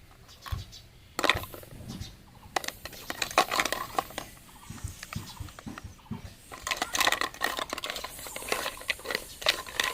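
Miniature toy food pieces being put into a tiny toy pan and moved about: irregular light clicks, taps and scrapes.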